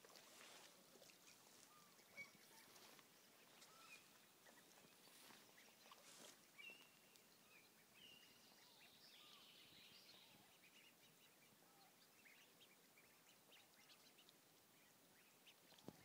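Faint calls from a family of ducks on the water: short high peeps and a few softer, lower calls scattered over quiet background hiss.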